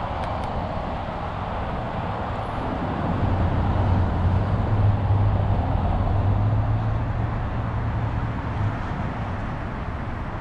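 2012 Toyota Corolla S four-cylinder engine idling, heard from outside the car as a steady low hum with a background of traffic noise. The hum grows louder a few seconds in and eases off near the end.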